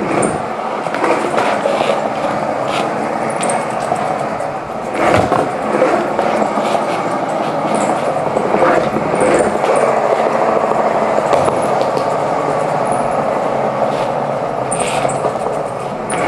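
Skateboard wheels rolling along a hallway floor in a steady rumble, with irregular clicks as they run over the floor joints.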